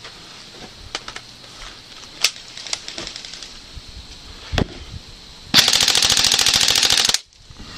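Airsoft rifle firing one fast full-auto burst of about a second and a half, which is the loudest sound and stops abruptly. Before it come a few scattered single sharp snaps.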